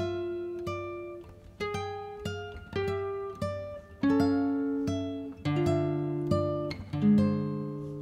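Background music: a slow melody of plucked guitar notes, each note starting sharply and ringing out as it fades.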